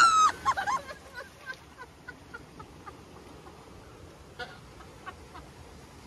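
A rider's high-pitched shriek, followed by a quick run of laughs that die away within about a second and a half. After that there is a faint rush of water with a couple of small knocks.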